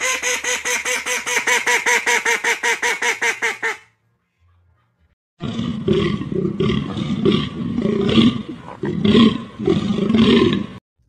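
A goose calling in a fast, even run of honks, about nine a second, for nearly four seconds. After a short pause come loud, rough, low animal calls in uneven bursts for about five seconds.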